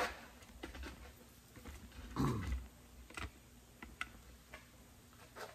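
Light clicks and taps of small metal parts and hand tools being handled at a bench vise, with a short low sound falling in pitch about two seconds in.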